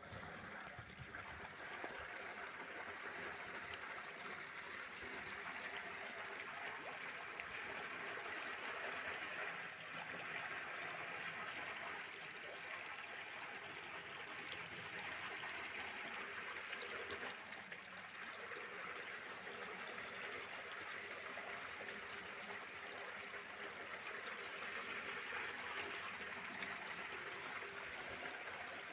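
Water running and trickling steadily in a fish-rearing pool.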